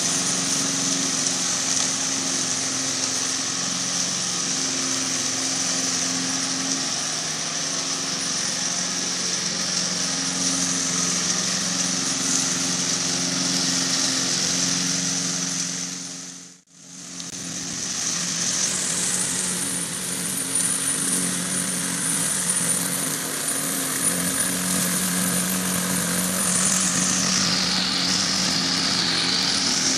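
Radio-controlled lawn mower running, with a steady motor hum and a high whine above it. The sound fades out and back in about 17 seconds in. Near the end the high whine drops in pitch and rises again.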